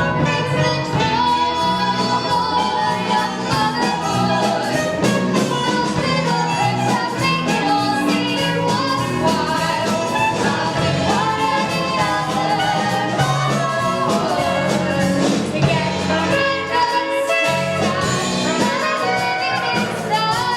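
Stage musical's band playing an upbeat number with brass, with singing over it.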